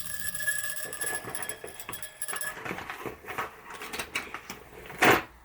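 Small steel washers clicking and rattling as they are handled and sorted, with a louder knock near the end. A steady high whine runs through the first half and then stops.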